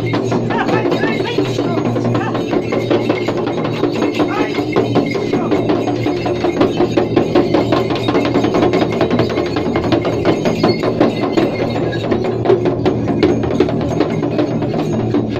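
Handheld shaman's frame drums beaten in a fast, steady rhythm, with voices mixed in.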